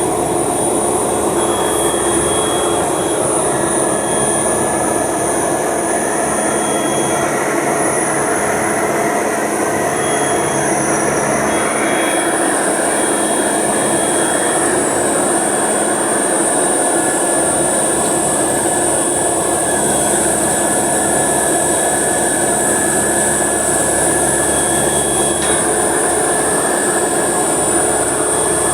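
Steady, loud machinery noise from an engine or motor running without pause, with a high hiss over it.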